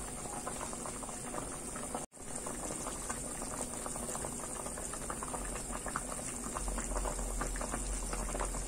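Apricot jam, halved apricots in thick sugar syrup, boiling hard in a stainless steel pot: a steady dense bubbling and popping as the syrup boils down to thicken. The sound breaks off for a split second about two seconds in.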